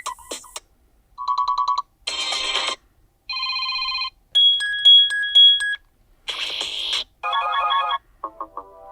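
HOTWAV Pad 8 tablet's built-in ringtones previewed one after another through its speaker: about eight short snippets, each cut off after a second or so, ranging from fast electronic trills and beeps to bits of melody.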